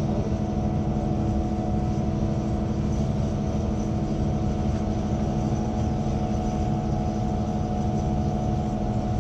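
A heavy engine running steadily at a constant speed: an even, unchanging drone with no revving.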